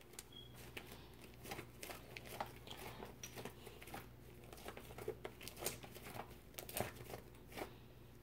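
Fluffy slime made with glue and shaving cream being kneaded, squeezed and stretched by hand: faint, irregular sticky crackles and small pops.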